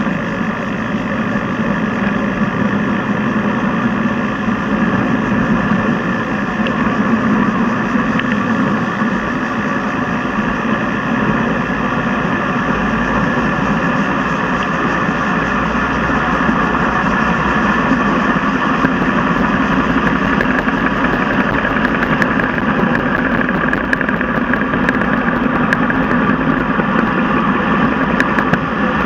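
Steady wind and road-vibration noise on a bicycle handlebar-mounted dashcam's microphone while riding along a paved road. Faint ticking enters over the second half.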